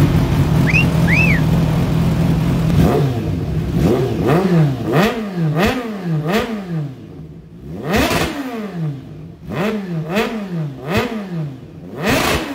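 Kawasaki Z H2's supercharged inline-four, cat-deleted and breathing through a single R9 carbon slip-on exhaust. It idles steadily for about three seconds, then is revved in a string of quick throttle blips, the pitch rising and falling with each.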